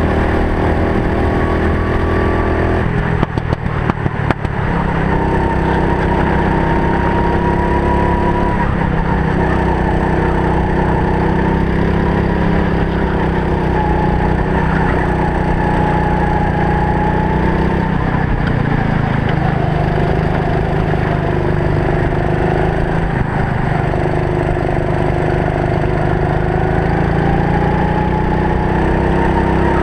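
Racing kart engine running under race load, heard from a helmet-mounted camera, its pitch rising and falling as the kart speeds up and slows for corners. A short run of rattling knocks about three to four seconds in.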